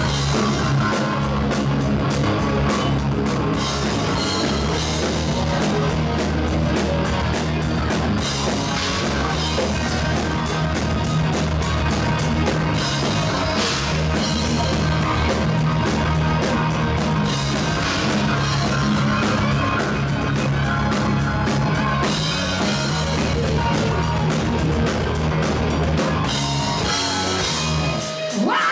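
Live rock band playing an instrumental passage: electric guitar over bass guitar and a drum kit with cymbals. The low end drops out just before the end.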